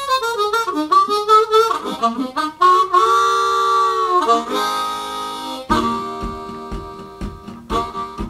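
Blues harmonica intro with bent, sliding notes and a long held chord. About two-thirds of the way in, an acoustic guitar joins with a steady rhythm of low strummed strokes under the harmonica.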